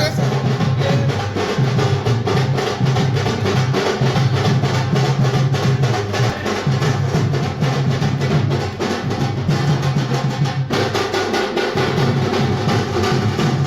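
Loud music with a fast, steady drum beat over a heavy bass line.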